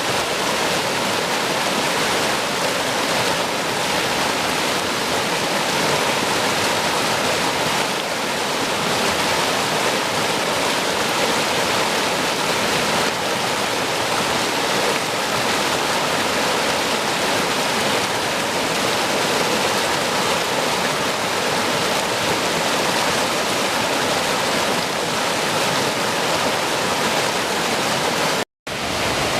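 Rushing water of a mountain stream, a steady full-bodied rush. It breaks off for an instant near the end and picks up again.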